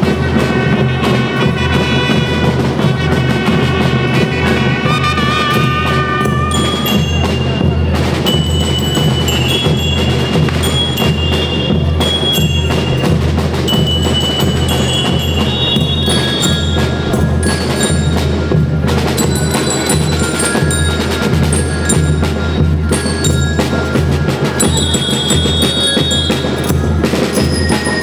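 School rhythm band playing: bell lyres ring out a melody over steady snare-drum strokes and a bass-drum beat.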